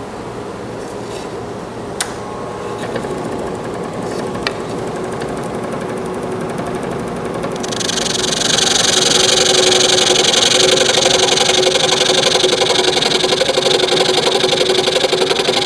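Scroll saw running with a steady motor hum and reciprocating blade. About halfway through, the blade starts cutting into a cedar board at a 15-degree bevel for dovetail pins, adding a loud, steady hiss of the cut.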